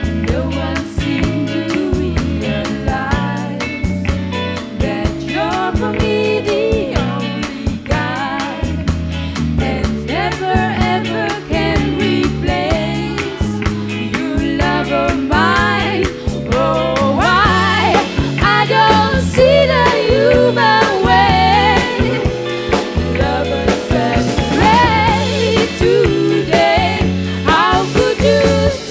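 Live rock band playing a song, with sung vocals over electric guitar, bass and drum kit, on an analog live recording. The band plays a test track during a soundcheck, and it grows louder and fuller a little past halfway.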